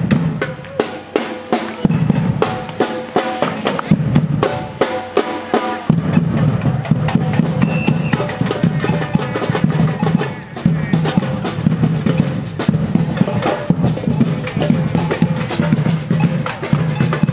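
Marching drum line playing a fast, driving rhythm on snare, tenor and bass drums, with a tune held over the drumming.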